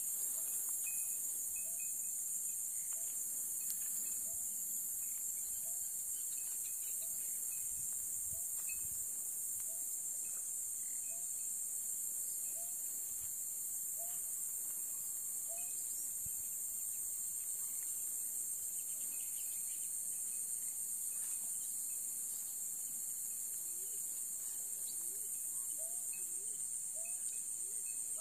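Steady, high-pitched chorus of night insects such as crickets, with a faint short call repeating about once a second underneath.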